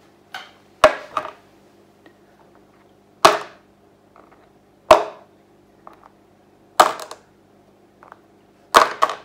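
Metal hex nuts dropped one at a time into a takeaway tray, each landing with a sharp clink and a smaller bounce, about every one and a half to two seconds, with a few lighter clicks between.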